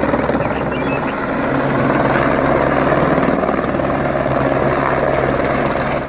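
Light single-engine helicopter hovering low, its rotor beating in a steady rapid chop over the engine's drone. The sound cuts off abruptly at the very end.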